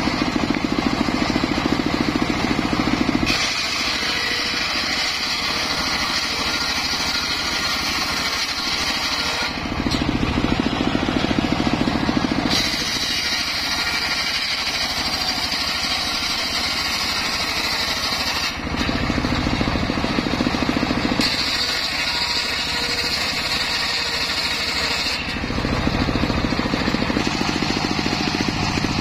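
Homemade engine-driven table circular saw running and ripping acacia timber. The sound shifts abruptly several times, alternating between deeper stretches dominated by the engine and brighter, higher stretches.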